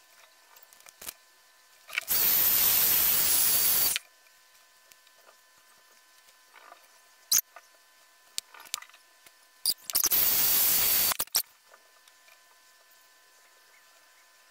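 Handheld hair dryer switched on in two short blasts, about two seconds and a second and a half long, with a faint high whine over its rush of air, drying wig glue along the hairline. A single sharp click comes between the blasts.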